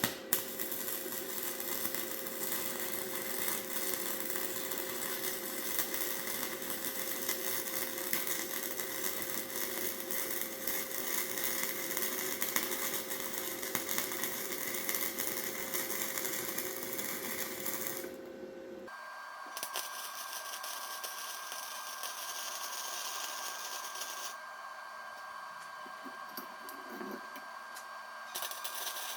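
An electric power tool running steadily. At about nineteen seconds the sound changes abruptly to a thinner running sound with a higher steady pitch.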